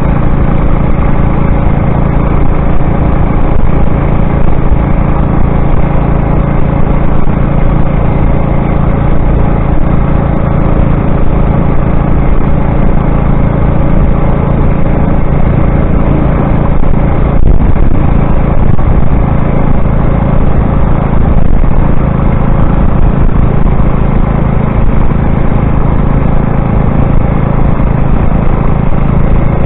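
Motorized bicycle's engine running steadily under way at an even cruising speed, loud and close, its pitch holding level throughout.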